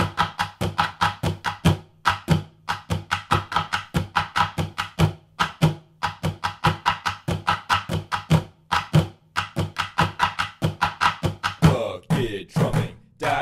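Two-part bucket-drumming groove: wooden drumsticks striking upturned plastic buckets in a steady, fast interlocking rhythm, low booming hits in the centre of the bucket mixed with sharper clicking hits on the rim. Near the end the drumming gives way to a short ringing sound with a clear pitch.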